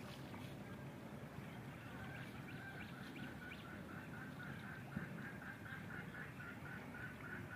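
Faint, rapid series of repeated calls, about three to four a second, beginning about two seconds in, over low outdoor background noise.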